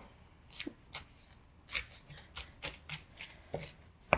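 Chef's knife dicing a red onion on a wooden cutting board: a run of short, uneven knife taps against the board, a few a second.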